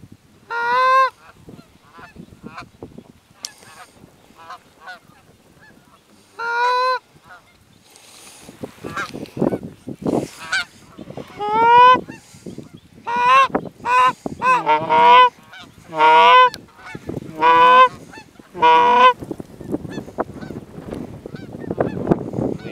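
Canada geese honking: a few single honks a couple of seconds apart, then, from about a third of the way in, a fast run of loud overlapping honks and clucks that stops a few seconds before the end.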